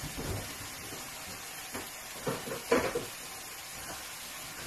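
Steady hiss of food cooking on the hob, with a few short knocks and clatters of kitchen containers or a cupboard being handled, the loudest a little after halfway.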